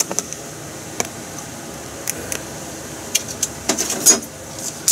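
Kitchen scissors snipping dried kombu: a few short, crisp clicks and snips, clustered about three to four seconds in.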